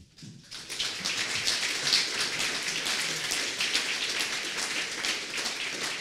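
An audience of a few dozen people applauding, the clapping starting about half a second in and holding steady.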